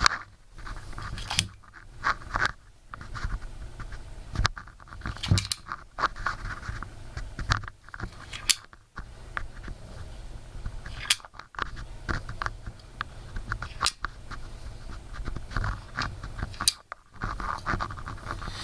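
Scratching and rubbing handling noise from an earbud pressed against the camera microphone, with irregular sharp clicks and knocks as the tuning pin of a homemade crystal radio is pulled out and pushed into another station hole.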